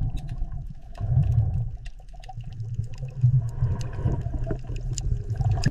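Underwater ambience sound effect: a low rumble that swells and fades, with scattered faint clicks and pops over it.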